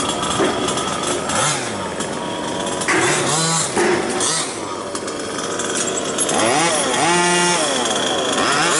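Small two-stroke petrol engines of 1/5-scale RC buggies running and revving in short bursts, the pitch rising and falling with the throttle.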